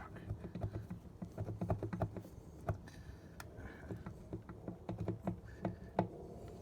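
Irregular light metallic clicks and knocks of hand tools and engine parts being worked to free a stuck component.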